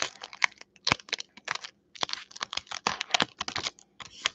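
Foil wrapper of a Pokémon trading-card booster pack crinkling and tearing as it is opened by hand: a fast, irregular run of sharp crackles with short pauses between bursts.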